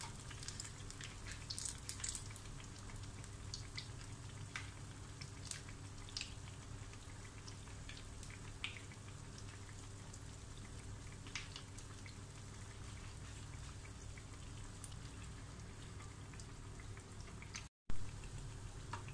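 Batter-coated potato slices deep-frying in hot oil: a faint, steady sizzle with scattered crackles and pops. There is a brief gap in the sound near the end.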